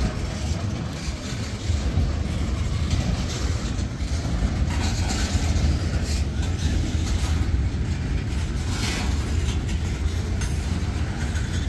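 Freight cars of a manifest train rolling past: a steady low rumble of steel wheels on rail, with scattered clicks and clacks as the wheels cross rail joints.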